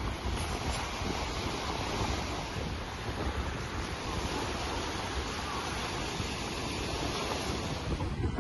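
Sea surf: small waves breaking and washing up a pebble beach in a steady rush of noise, with wind buffeting the microphone.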